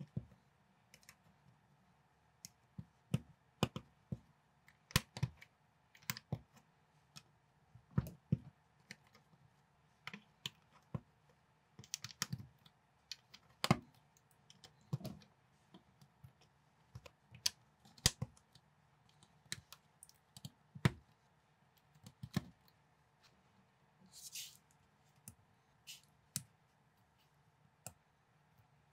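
LEGO-compatible plastic bricks clicking and snapping together as pieces are handled and pressed onto a plate: irregular sharp clicks, one or two every second or so, with a brief soft hiss near the end.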